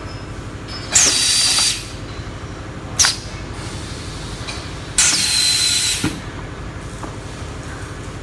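Semi-automatic corrugated paper muffin cup forming machine cycling its pneumatic cylinders: three sharp hisses of air, about two seconds apart, the first and last each lasting nearly a second and the middle one brief. There is a clunk at the end of the last hiss, over a steady low machine hum.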